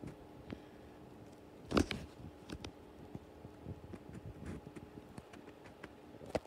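Igenix 30-inch tower fan running on low with oscillation: a faint, steady motor hum. Scattered light clicks and a louder knock about two seconds in sound over it.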